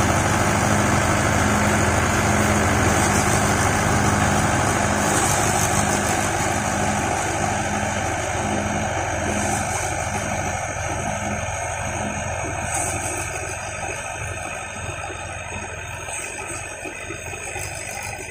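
Swaraj XM tractor's diesel engine and the paddy thresher it drives running steadily as sheaves of paddy are fed in. The sound grows gradually fainter in the second half.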